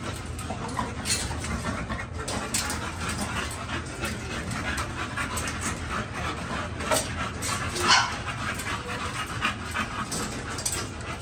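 A dog panting close by, with scattered short noisy sounds, the loudest about eight seconds in.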